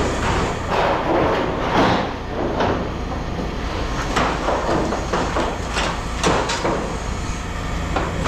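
Scrap metal pieces clanking and rattling as they are handled and tossed into bins, in several irregular bursts over a steady low hum.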